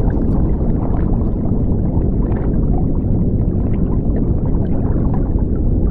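Underwater sound effect: a loud, steady, churning low rumble of water and bubbles, with small crackles above it.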